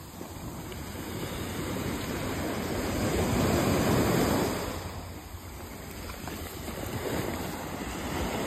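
Small waves washing up on a sandy shore at the water's edge, swelling about three seconds in and again near the end.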